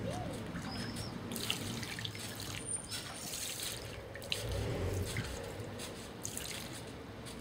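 Water trickling and dripping, with a few small sharp drip sounds scattered through it.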